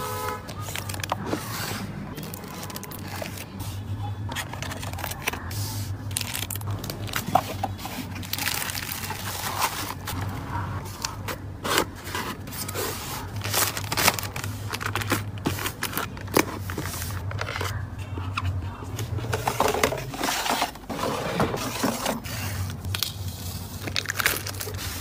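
Hand packing sounds: a plastic poly mailer rustling as it is pressed flat, a cardboard mailer box sliding and scraping on a desk, and rolls of printed adhesive tape being handled. It is a steady run of scrapes, crinkles and light taps over a low hum.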